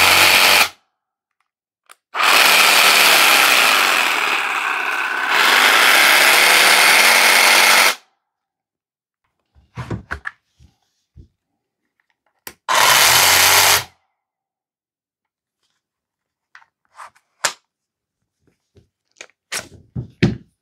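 Parkside PSSSA 20 Li B2 cordless 20 V jigsaw/sabre saw running free without a blade fitted. It starts with a short burst, then runs for about six seconds, easing off in the middle and picking up again, then gives a second burst of about a second. Light handling clicks come in the gaps.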